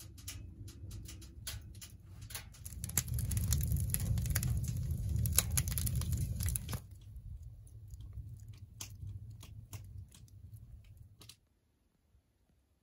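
Wood fire crackling in an open-lidded wood stove, sharp irregular snaps over a low rush of burning. It is loudest for a few seconds in the middle, softer after, and cuts off shortly before the end.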